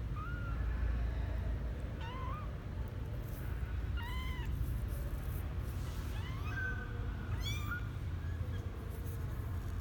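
A 12-day-old kitten mewing: about five short, high-pitched cries spaced a second or two apart, over a steady low hum.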